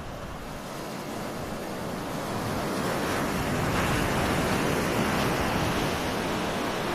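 Ocean waves breaking and washing up on a beach, the surf growing louder about two to three seconds in and holding there.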